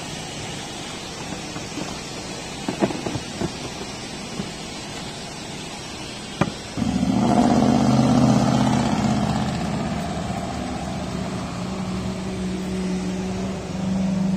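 A few light knocks and clicks over steady background noise. About seven seconds in, a motor starts abruptly and runs on with a steady low hum.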